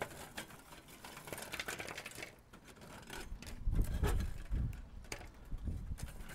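Dry twigs and grass tinder rustling, snapping and rattling as a hand rummages through them inside a small steel Firebox wood stove, with many scattered crisp clicks and a few dull low bumps about three to five seconds in.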